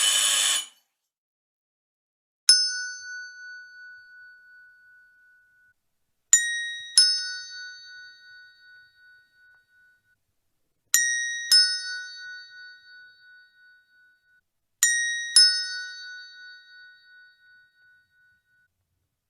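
Two-tone doorbell chime: one ding, then three ding-dongs, a higher tone followed by a lower one, each ringing out for a few seconds. A harsh buzz cuts off within the first second.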